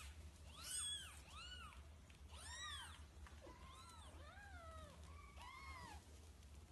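Kitten mewing over and over in short, high-pitched calls, each rising and then falling in pitch, about ten in a few seconds.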